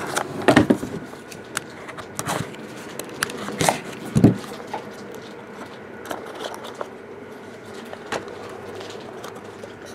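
Hands handling cardboard trading-card boxes: scattered taps, knocks and scrapes as the inner boxes are lifted out of the opened display box and set down, the loudest a dull knock about four seconds in.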